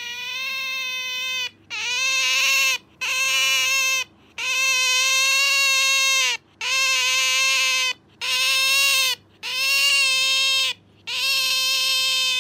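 Pet otter calling in a run of about eight loud, steady-pitched whines. Each lasts about a second, one about two seconds, dipping slightly in pitch at the end, with short gaps between them.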